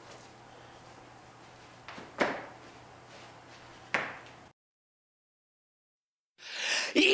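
Two sharp thuds about two seconds apart over faint room tone, each ringing briefly, then a stretch of dead silence and a rising rustle with a click near the end.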